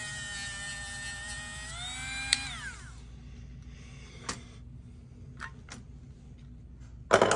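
Dremel rotary tool with a polishing wheel running steadily as it buffs a small steel trigger part smooth. It is switched off about two and a half seconds in and its whine falls away as it spins down. A few light clicks follow, then a brief louder noise at the very end.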